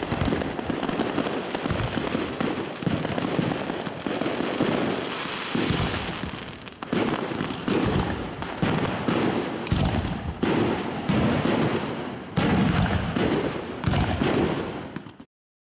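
Aerial fireworks display: a continuous crackle of bursting shells and stars, with new bursts of bangs and crackling about once a second in the second half, then it stops abruptly near the end.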